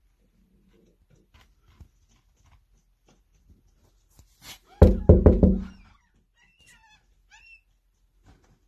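Two seagulls fighting: light scuffling, then a loud flurry of knocks and thumps about halfway through lasting about a second, followed by a few short high calls.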